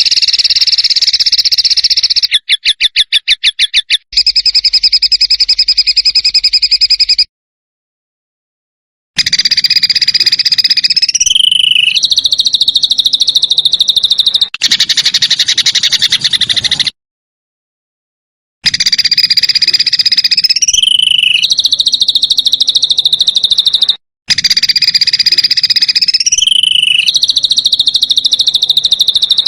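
Harsh, rapid buzzing trills from a small songbird, the 'rough shot' calls of a masteran recording played in repeated blocks. Each block cuts off abruptly into a second or two of silence. Some blocks end in a quick upward slide in pitch.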